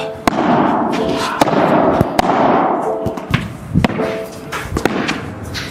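A padel rally: sharp pops of the ball coming off rackets, the court floor and the walls, about one to two a second.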